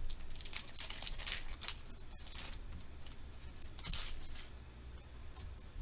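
Foil Pokémon booster pack wrapper being torn open and crinkled by hand, in a run of short rustling bursts over the first two seconds and another about four seconds in.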